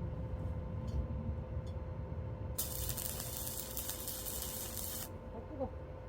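Arc welder striking an arc and welding for about two and a half seconds: a dense crackling sizzle that starts about halfway in and cuts off suddenly, over a steady hum.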